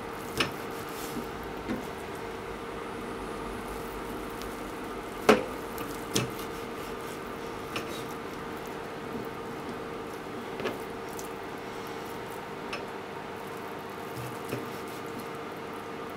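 Kitchen knife cutting through thick deep-fried tofu, the blade tapping down on a plastic cutting board about ten times at uneven intervals, the loudest tap about five seconds in. A steady hum runs underneath.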